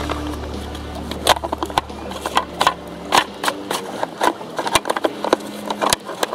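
Irregular clicks and clacks as a cordless chainsaw's bar, chain and plastic housing are handled; the chain's cutting teeth have been snapped off by barbed wire. A low steady hum underneath fades out about three seconds in.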